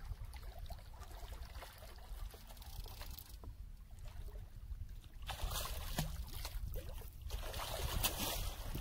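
Water splashing and sloshing as a hooked catfish thrashes at the surface beside the boat, in two louder bursts about five and eight seconds in, over a steady low rumble.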